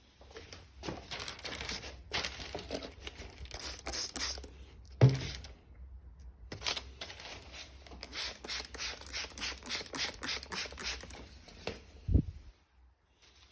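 Wet sanding a painted clear coat by hand with 3000-grit paper on a sanding block: quick back-and-forth rasping strokes, about three to four a second. Two dull thumps, the louder one about five seconds in and another near the end.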